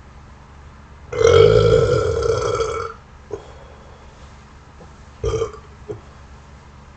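A long, loud natural burp starts about a second in and lasts nearly two seconds. A second, short burp follows about five seconds in.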